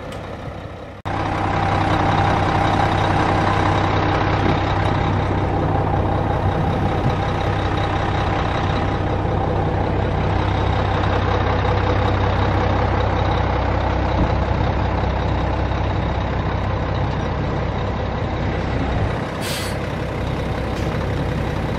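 Diesel dump truck engine running steadily, with a short hiss of air, like an air brake, near the end.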